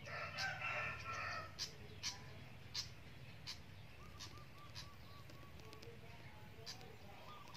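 A chicken gives one drawn-out call for about a second and a half at the start. Short sharp high chirps follow every half second or so, with a quick run of small repeated notes in the middle, over a steady low background hum.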